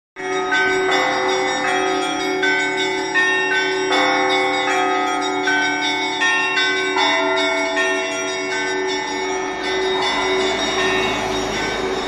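Russian Orthodox church bells ringing: a repeating pattern of bell strikes, about one every three quarters of a second, over the steady hum of a larger bell. A rushing noise swells near the end.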